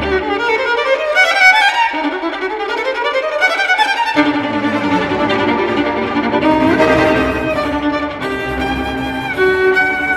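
Background music led by a violin: rising runs over the first few seconds, then held notes with a bass part coming in about four seconds in.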